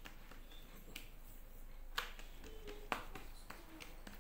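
Hands pressing and stretching oiled msemen dough thin on a marble worktop: soft handling noise with a couple of sharp taps, about two and three seconds in.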